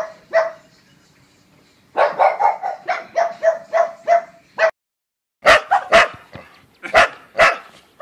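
A dog barking: a quick run of short, even barks at about four a second, then, after a sudden cut, louder, sharper barks in two pairs.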